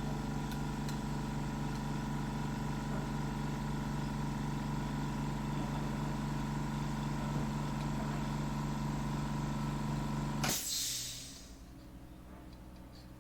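Bridgeport milling machine running steadily with an even electric-motor hum, then switched off about ten seconds in with a brief hiss as it stops, leaving only a faint background.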